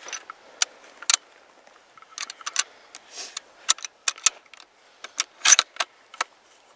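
Metallic clicks and clinks of a scoped bolt-action rifle being handled and loaded, a cartridge pushed into the open action, in irregular single clicks and quick pairs, with the loudest, slightly longer clack about five and a half seconds in.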